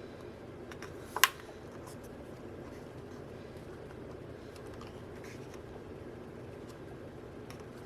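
Handling noise from a photobook being leafed through: one sharp click about a second in, then a few faint ticks over a steady low room hum.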